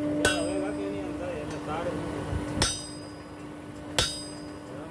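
Blacksmith's hammer striking metal on an anvil: three sharp, ringing blows, irregularly spaced, over a steady low hum.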